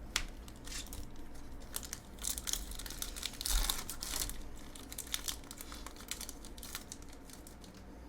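Foil wrapper of a Magic: The Gathering collector booster pack being torn open and crinkled, a run of sharp crackles, loudest a little past halfway.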